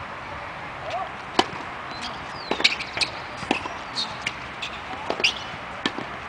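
Tennis balls struck with racquets and bouncing on a hard court: a serve, then a rally of sharp pops every second or so.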